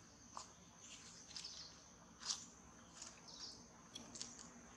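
Faint outdoor ambience: scattered short bird chirps over a steady high-pitched hum, with a single sharp click about two seconds in.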